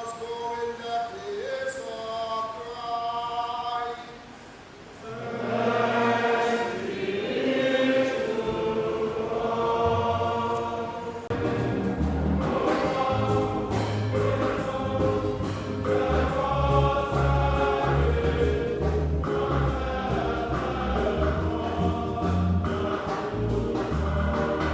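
Choir singing, dipping briefly about four seconds in; from about eleven seconds in a low bass line and a steady percussion beat join the voices.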